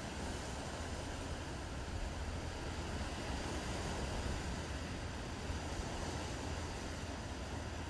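Steady wind rumble on the microphone over the even wash of the sea.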